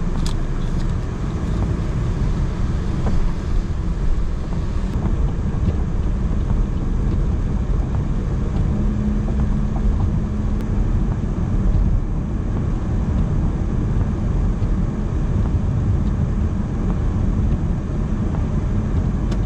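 Steady low road rumble inside a car's cabin as it drives on a rain-soaked highway: tyre noise on the wet pavement and engine hum, with no sudden events.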